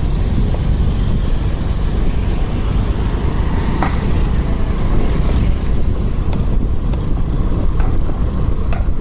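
Wind buffeting a helmet-mounted phone microphone on a moving motorcycle, a steady low rumble with road and traffic noise mixed in.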